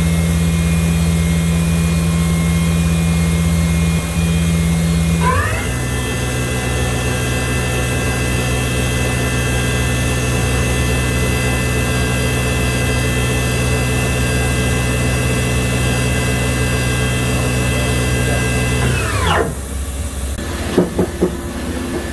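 The spindle of a 2004 Kitamura 2XiF vertical CNC machining center runs with a steady whine. About five seconds in, the pitch rises quickly to a higher speed and holds steady. Near the end it winds down, followed by a few light clicks.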